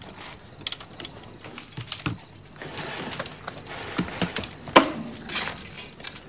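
Scattered clicks, knocks and metal taps of drum-kit and cymbal-stand hardware being handled and set up, with a couple of brief swells of hiss; the loudest is a sharp knock about five seconds in.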